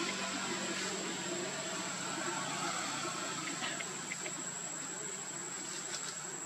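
Insects droning steadily, with a constant high whine over a soft hiss.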